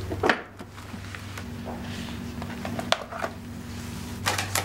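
A few light clicks and knocks of objects handled on a desk, over soft room tone.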